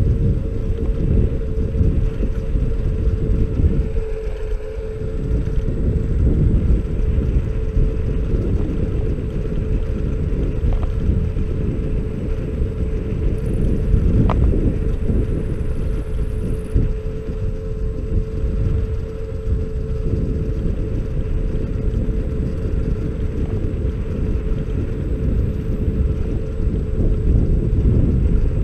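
Xiaomi Mi Scooter Pro 2 electric scooter riding along an asphalt road: a steady one-note hum over a dense rumble of tyres and wind on the microphone, with a single brief click about halfway through.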